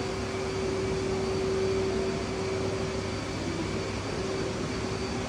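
Air-conditioning hum in a large indoor space: a steady hiss of moving air with one held mid-pitched tone.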